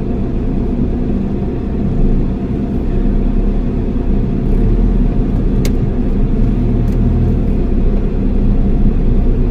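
Car engine and tyre rumble heard from inside the cabin as the car creeps along a rough dirt track, a steady low drone that grows a little louder a couple of seconds in. One short click a little over halfway through.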